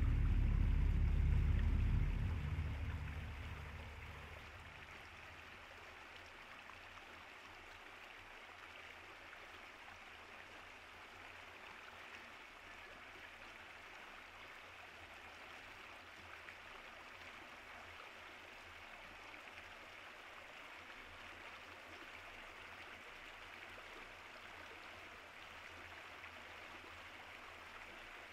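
Low music fades out over the first few seconds, leaving the steady, faint rush of a flowing stream.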